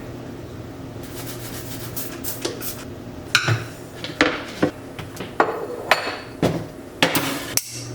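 Dishes and cutlery clattering as they are handled, with sharp clinks and knocks coming about every half second from roughly three seconds in, over a low steady hum.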